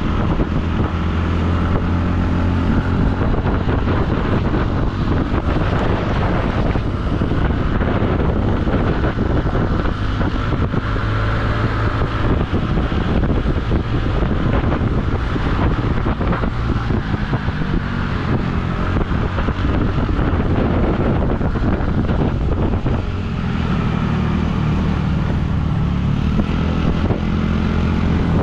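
A vehicle engine running on the move, its pitch shifting as speed changes, with wind rushing over the microphone.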